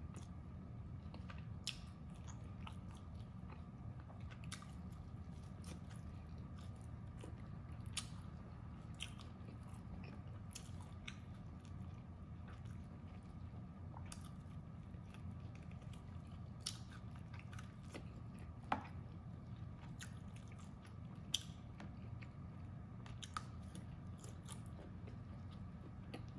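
A person chewing and biting roast duck close to the microphone: wet mouth sounds with scattered sharp clicks and crunches, over a steady low hum.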